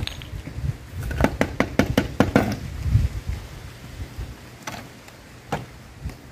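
A quick run of about seven sharp clicks a little over a second in, then a dull thump and two single knocks later on, over a low wind rumble on the microphone. No gunshot.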